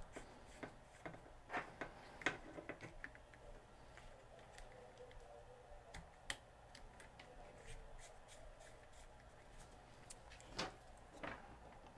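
Faint handling noises: a power cord and piercing test probes being moved and clipped on, with scattered small clicks and rubs.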